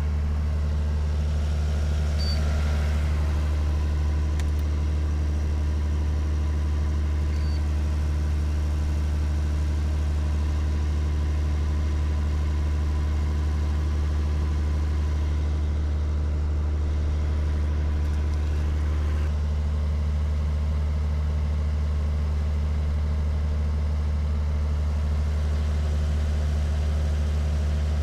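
A motor running steadily with a low, unchanging hum.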